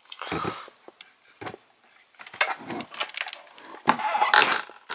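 Handling noise from a Snap-on Modis scan tool: irregular knocks, rubs and rattles, with a sharp click about a second and a half in and a busier, louder cluster near the end.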